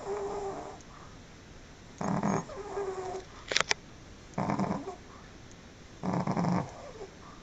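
Pekingese dog snoring in its sleep: a loud rasping snore of about half a second roughly every two seconds, each followed by a softer whistling breath. Two sharp clicks come about halfway through.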